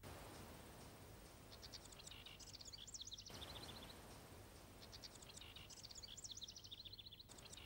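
Faint meadow ambience: small birds twittering in quick runs of high chirps, in two bouts, over a soft background hiss.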